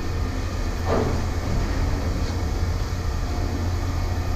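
A heavy engine running steadily with a low rumble, with one short clank about a second in.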